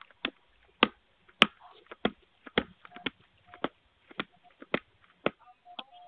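Ring video doorbell's button pressed over and over, a sharp click right at the microphone about every half second, some ten presses in a row.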